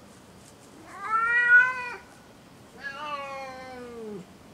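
Domestic cat meowing twice in long, drawn-out calls: the first, about a second in, is the louder, and the second drops in pitch as it ends.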